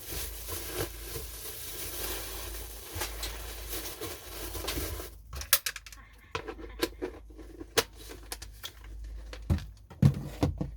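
Plastic takeaway packaging crinkling and rustling for about five seconds, then a series of sharp clicks and knocks as the plastic food containers and lids are handled.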